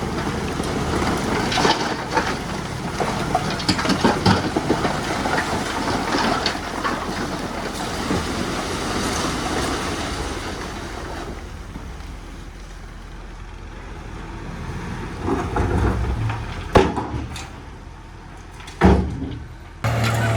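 Heavy earthmoving machinery working dirt: diesel engine noise with dense rattling and clanking that dies down about halfway through, then two sharp knocks near the end.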